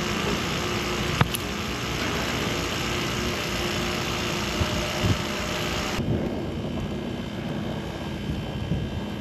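Wind buffeting the microphone over a low steady hum, with one sharp click about a second in; the sound turns duller about six seconds in.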